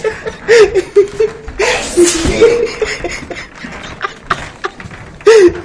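A man laughing in short bursts, mixed with another man's fit of sneezing set off by kalanchoe juice in his nose; a loud sneeze about two seconds in and another loud burst near the end.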